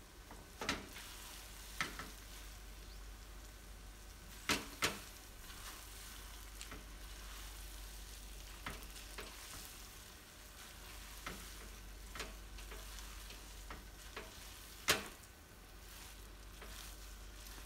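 Silicone spatula stirring and scraping a potato, carrot and rice-vermicelli filling around a nonstick wok, with a faint frying sizzle and scattered knocks of the spatula against the pan, the sharpest a few seconds before the end.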